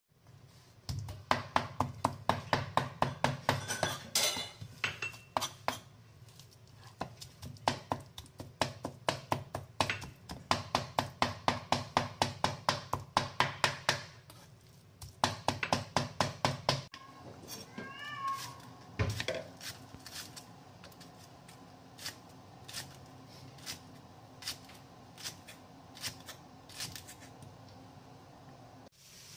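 Cleaver rapidly chopping minced prawns on a wooden board, several strokes a second, with short pauses. Then a knife slicing spring onions on a wooden board in slower, lighter taps, and a brief cat meow just after the switch.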